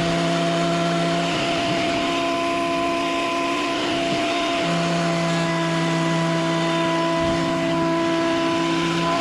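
Bauer 12-1/2 in. benchtop thickness planer running at full speed with its 15 amp motor and cutterhead, a steady whine of several tones over a rushing noise. Chips blow out of the exhaust port with no vacuum attached; a low tone in the whine drops out twice and comes back.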